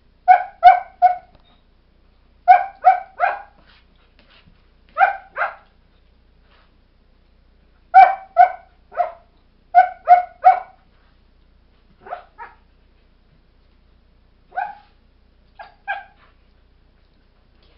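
Two Airedale Terrier puppies barking back and forth at each other while lying down: short, high yips and barks in quick runs of two or three, with pauses between, the runs growing quieter in the last third.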